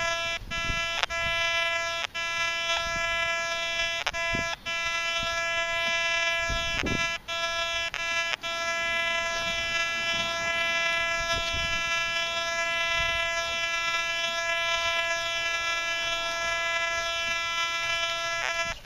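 Metal detector with a 6x10 double-D search coil sounding a steady buzzing tone, broken by short gaps several times in the first nine seconds as the coil sweeps trashy ground. The display reads iron at the same time, so the tone marks iron trash under the coil.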